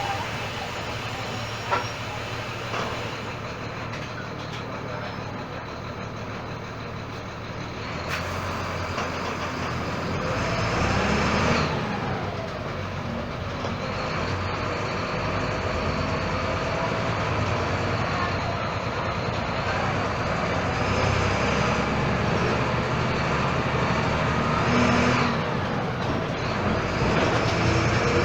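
Volksbus 17.230 EOD bus with a Marcopolo Torino body, engine running under way. The sound grows louder about a third of the way in, and the engine pitch rises and falls a couple of times.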